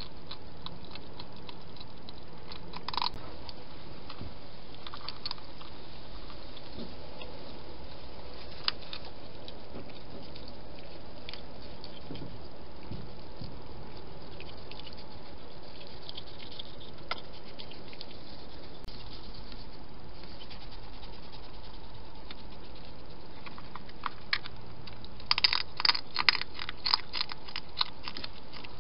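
A steady hiss with a few scattered soft clicks, then, from about 25 seconds in, a wild hedgehog crunching dry food in a rapid run of crisp crunches.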